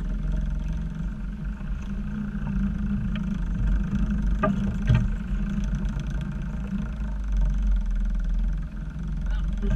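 Steady low rumble with two short knocks about four and a half and five seconds in, as fishing rods and gear are handled and set down in the boat.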